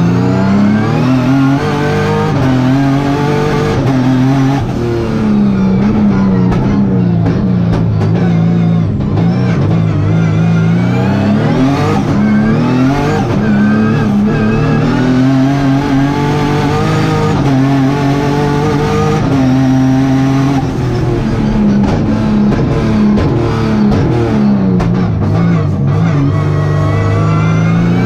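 Turbocharged Hyundai Genesis race car's engine pulling hard up the hill climb, its pitch repeatedly climbing and then dropping back as it accelerates through the gears and lifts for corners.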